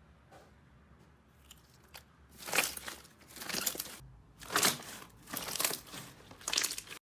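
Slime being squeezed and pressed by hand, in about five noisy bursts starting about two seconds in, cutting off abruptly near the end.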